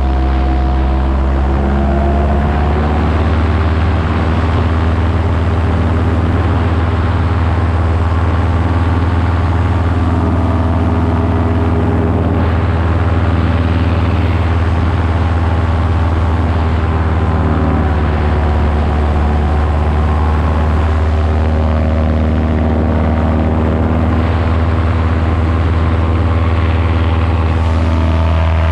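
Paramotor engine and propeller running steadily in flight, a constant low drone with rushing air over it; the pitch shifts slightly a couple of seconds in.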